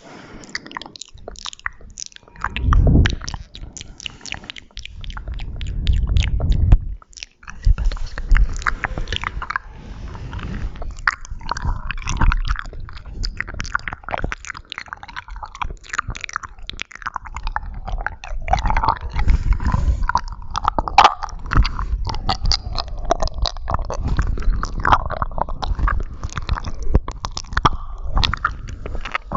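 Close-miked ASMR mouth sounds: a dense, irregular run of wet clicks and smacks of the lips and tongue. There are stretches of low rumbling about three and six seconds in.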